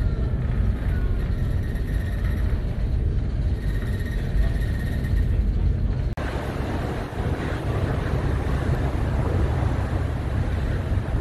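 Storm wind buffeting the microphone on a ferry's open deck, a heavy steady rumble with sea noise under it. At a cut about six seconds in, the wind and wave noise turns brighter and fuller.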